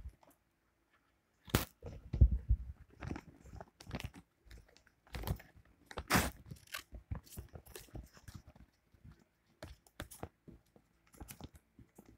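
Paper rustling and crinkling close to the microphone in irregular bursts, with small handling knocks, as a homemade paper blind bag is handled and unfolded. The loudest bursts come about two seconds and six seconds in.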